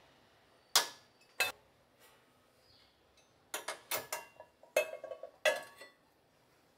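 A magnetic hook clicks into place twice, then small enamel pans clank and knock as they are hung on hooks, one of them ringing briefly.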